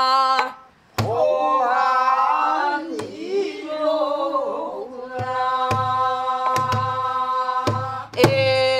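A woman singing pansori in long held notes, with a short break just after the start. She accompanies herself on a buk barrel drum: sharp stick strikes and low thumps, coming several times a second in the second half.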